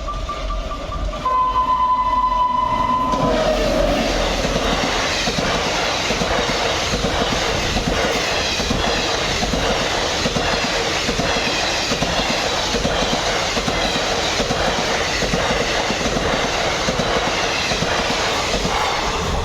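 Teesta Torsa Express passing at speed: the locomotive horn sounds, ending in a loud blast of about two seconds, then from about three seconds in the coaches run by with a continuous rattle and clickety-clack of wheels over the rails.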